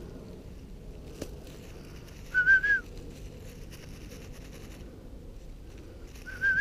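A short, warbling whistled call, sounded twice about four seconds apart, each about half a second long, at a steady mid pitch with a quick wobble.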